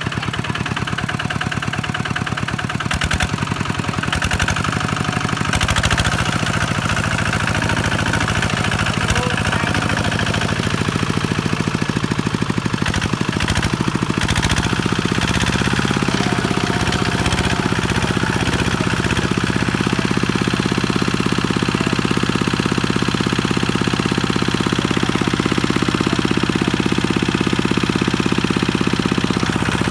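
Kubota two-wheel walking tractor's single-cylinder diesel engine running steadily with an even, rapid chug, under load as its steel cage wheels drive through paddy mud.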